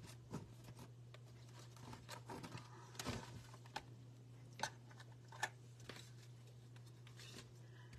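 Faint clicks and taps of paper-crafting supplies being handled and set down on a desk, including a clear plastic stamp case, with a few sharper clicks near the middle over a steady low hum.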